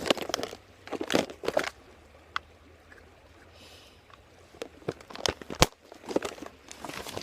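Handling noise close to the microphone: scattered clicks, knocks and rustles as gear is moved about, in several short clusters.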